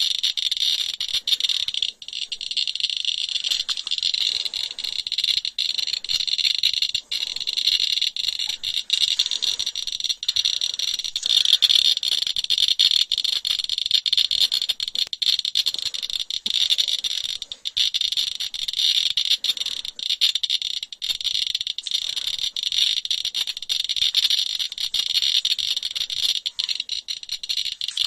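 Radiation detector (Geiger counter) clicking from its speaker in a fast, dense, crackling stream, which signals a high count rate.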